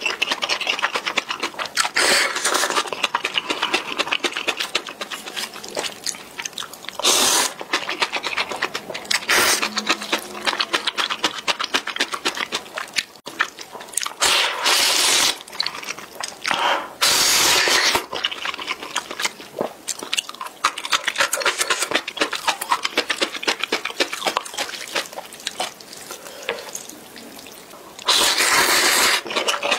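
A person slurping instant ramen noodles: several loud slurps of about a second each, with wet chewing and lip and mouth clicks between them.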